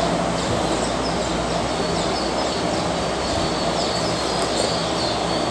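Steady background noise with a low, even hum.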